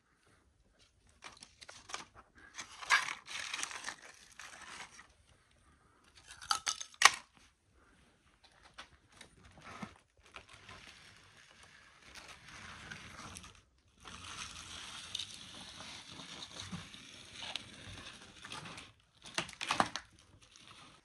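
Rustling, scraping and crunching as someone moves carefully over a floor strewn with debris and flaking plaster, with the handling noise close to the phone. A couple of sharp knocks about seven seconds in are the loudest sounds.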